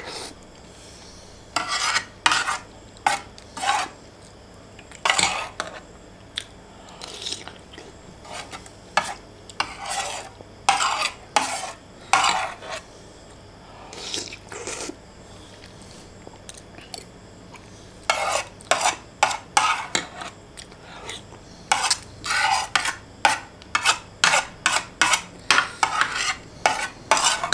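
Metal spoon and fork clinking and scraping on a ceramic plate while eating noodles, in scattered strokes at first and a quick run of scrapes in the last few seconds as the plate is cleared.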